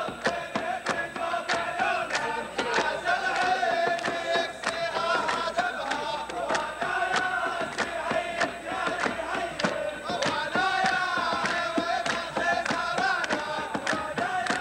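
A group of voices singing a song together over a steady beat of about two sharp strokes a second, with an audience clapping along in time.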